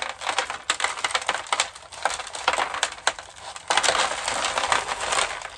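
Chunky aroid potting mix (bark, pebbles and grit) crunching and rattling as a thin plastic nursery pot is squeezed and the mix spills out into a plastic tray, a dense run of crackling clicks that gets busier in the second half.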